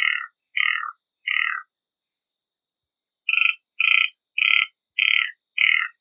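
Guianan toucanet calling: a series of short, harsh, rasping notes. Three notes come, then a pause of about a second and a half, then five more at about two a second.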